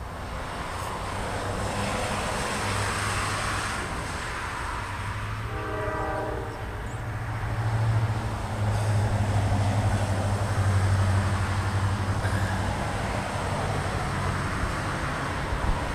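CSX GE CW44AC (AC4400CW) diesel locomotive approaching at the head of a loaded grain train: a steady low engine drone that grows louder. Its horn sounds briefly about six seconds in.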